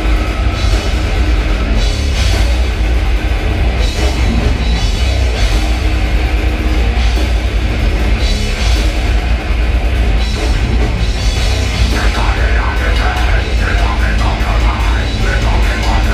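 A heavy metal band playing live and loud: a full band with a drum kit and heavy bass, without a break.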